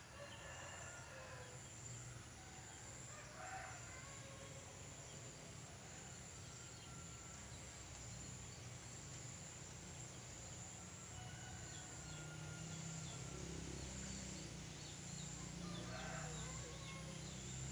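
Faint outdoor background with a couple of brief animal calls, about three and a half seconds in and again near the end, over a low steady hum.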